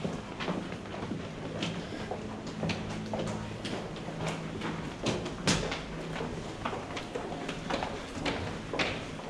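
Many footsteps clicking on a hard floor in an underground station passageway, irregular and overlapping, over a steady low hum.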